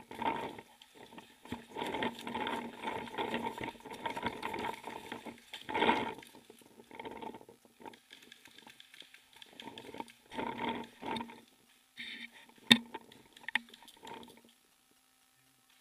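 Footsteps and rustling through dry leaf litter, coming in uneven bursts, with one sharp crack near the end.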